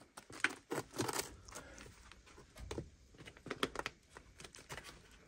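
Sneakers stepping and scuffing on a gritty, debris-strewn concrete floor: irregular crunches and scrapes.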